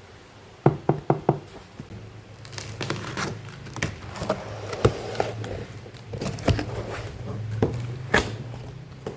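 Objects being handled by hand: four quick light knocks about a second in, then steady rustling with an occasional sharp knock.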